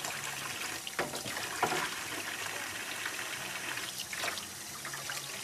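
Tap water running into a stainless steel sink while a plastic cutting board is rinsed and scrubbed, a steady splashing with a few light knocks about a second in and again near four seconds.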